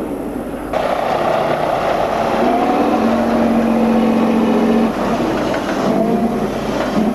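Tatra 813 8x8 truck's air-cooled V12 diesel running under load as the truck climbs a dirt mound. The engine note rises about two and a half seconds in and holds steady, dipping briefly near five seconds.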